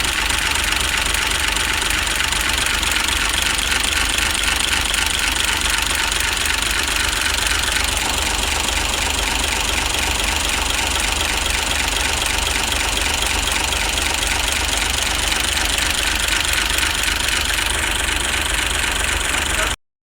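Hino K13C inline-six diesel engine running steadily at idle with a diesel clatter, now started after a cranking-only no-start. The sound cuts off abruptly at the very end.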